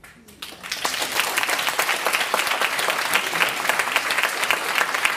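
Audience applauding: clapping starts about half a second in, quickly builds to full, and holds steady.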